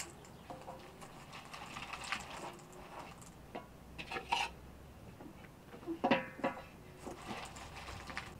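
Scattered clinks, scrapes and small knocks of a knife and hands against aluminium bowls as a whole cooked chicken is cut up in one bowl, with a few louder knocks about halfway through and near the end.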